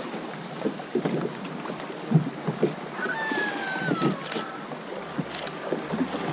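River water lapping and splashing, with wind on the microphone and scattered short knocks. A brief falling whistle about three seconds in.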